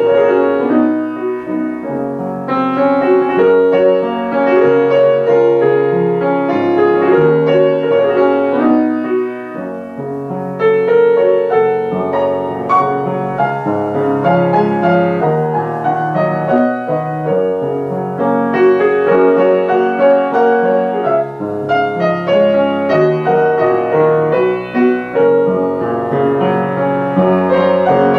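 Solo piano played live: a continuous flow of notes and chords, easing off briefly about ten seconds in before picking up again.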